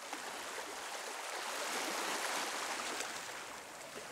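Gentle sea water lapping and washing over a stony shore, a steady rushing hiss that fades up over the first second or so.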